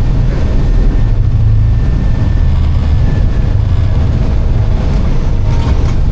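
Steady, loud rumble of an Airbus airliner in flight: airflow and engine noise heard from inside the aircraft, with no break or change.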